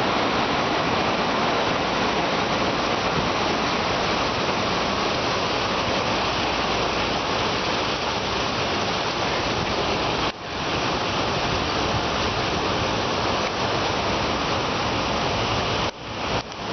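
Car wash water sprays running: a dense, steady rush of falling water that drops out for a moment about ten seconds in and twice near the end.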